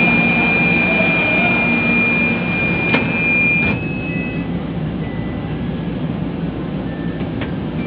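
Manila MRT train's door-closing warning tone: one long steady high beep that cuts off with two sharp knocks about three to four seconds in, as the doors shut. Under it, the train car's steady low rumble as it begins to pull out of the station.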